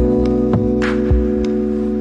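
Background music: sustained chords over a low bass line, with a few soft percussive hits.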